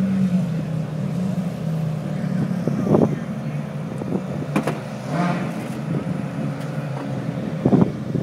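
Race car engine idling, a steady low drone, with a few sharp knocks and clicks.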